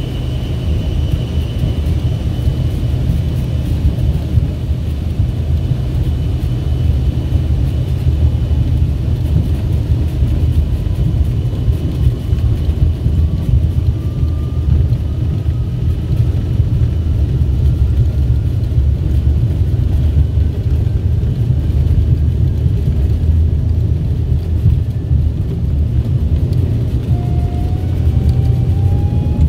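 Jet airliner cabin on the runway: a steady deep rumble of engines and wheels, with a faint engine whine slowly climbing in pitch through the middle and again near the end.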